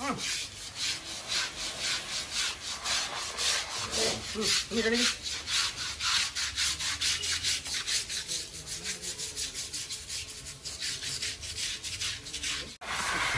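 Rhythmic scrubbing strokes on an elephant's hide, several a second, as it is scrubbed down during its bath. The strokes grow softer after about eight seconds.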